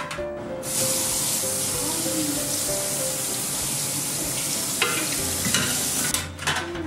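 Tap water running steadily onto the metal pan support of a portable gas stove as it is rinsed, starting just under a second in and stopping near the end, followed by a few light clicks.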